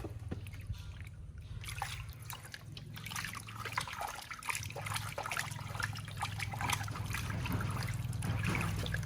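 Water trickling and splashing in a baby monkey's bath, a run of quick, irregular small spatters.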